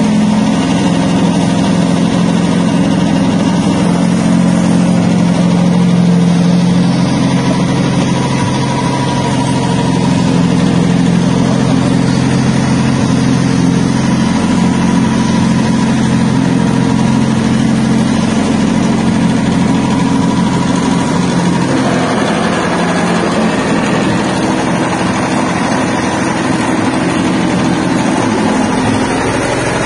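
Stainless-steel soybean dehulling machine running steadily with a loud, even motor hum. The sound changes character about 22 seconds in, becoming less deep.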